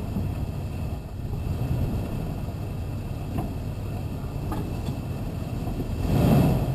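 Vehicle driving slowly over rough dirt ground: a steady low engine rumble with a few light knocks, swelling louder briefly near the end.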